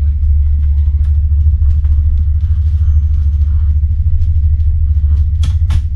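Steady low drone of the Lite Cat 2 catamaran ferry's engines, heard inside its passenger cabin, with two sharp clicks near the end.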